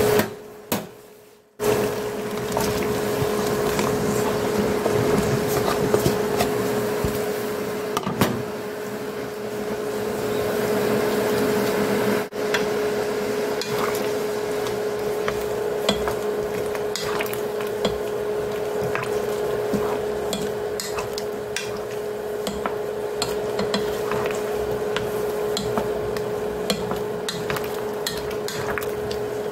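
Water at a rolling boil in a pan with chunks of king oyster mushroom being blanched, a spoon stirring them and knocking lightly against the pan. A steady hum runs underneath, and the sound cuts out briefly about a second in.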